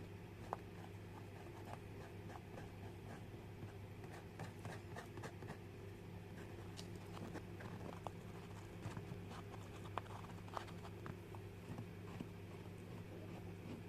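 Light handling noises: scattered small clicks, taps and short scratches of objects being worked by hand on a work surface, over a steady low hum.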